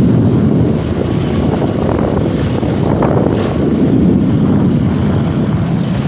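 Small 5 hp outboard motor running at low speed, a steady low rumble, with wind buffeting the microphone.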